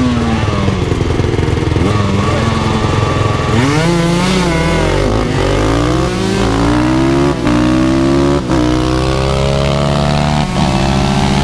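Honda CB650R inline-four motorcycle engine restricted to 35 kW, held at revs for a few seconds and then launched hard. It then accelerates flat out, its pitch rising in sweeps through the gears, with a brief break at each upshift.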